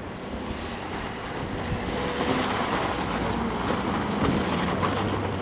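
VW Tiguan SUV sliding past on packed snow under power, its engine pulling and the spinning tyres hissing as they throw up snow. It grows louder as the car passes close, from about two seconds in to a peak near four seconds.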